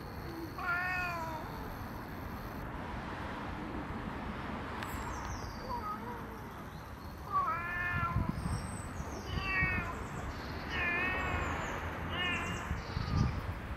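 Domestic cat meowing about five times, each meow rising and then falling in pitch, with the later ones coming close together.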